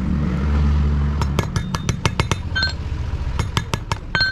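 Metal tools clinking and tapping on metal many times, some strikes ringing briefly, over the low hum of an engine running that is loudest in the first second.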